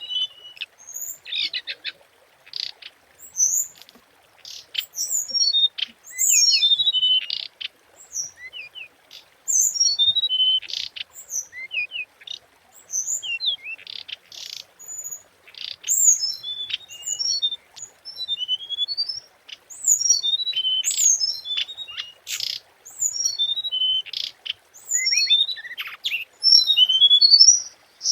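Hồng hạnh songbird singing: quick high phrases of short notes that step down in pitch, mixed with short sharp calls, repeating every second or two.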